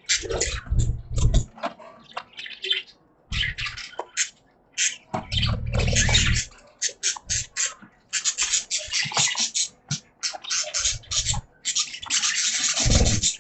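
Budgerigars chirping and chattering in quick, overlapping high-pitched bursts, with several short low thuds among the calls.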